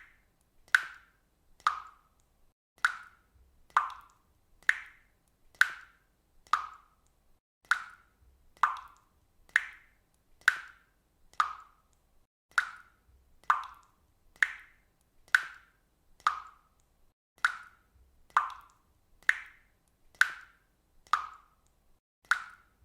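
Water dripping steadily into water, about one drop a second, each drop a short, clear plop.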